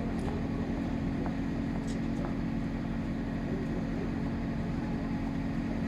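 A large vehicle engine running steadily at constant speed, a low even drone, with a few faint clicks over it.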